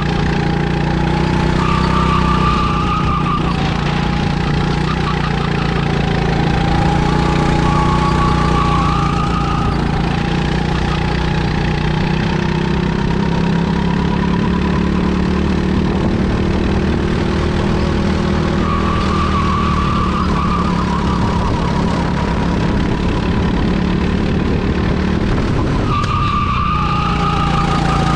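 BizKart rental kart's engine running under load, heard from on board. Its pitch rises and falls gently with speed, dips briefly near the end as the kart slows for a corner, then picks up again.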